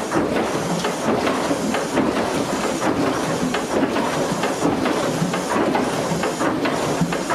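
Cross-compound steam mill engine running steadily: a continuous clatter of moving rods and valve gear with steam hiss, beating a little under once a second with the engine's revolutions.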